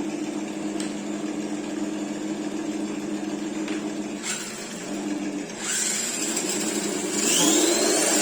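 Electric RC Brontosaurus truck running: a steady hum, then after about five and a half seconds a change and, near the end, a louder whine that rises in pitch as it speeds up.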